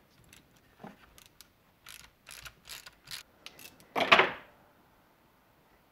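Socket wrench with a 7 mm socket clicking in quick, uneven runs as it backs a nut off a battery terminal bolt, then a louder metallic clatter about four seconds in.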